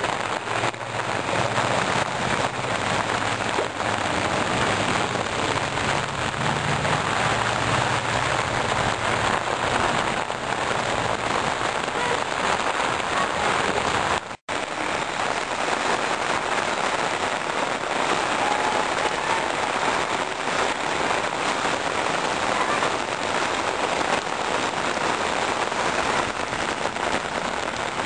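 Heavy monsoon rain pouring down and splashing on a wet street and foliage, a steady dense hiss. The sound drops out for an instant about halfway through.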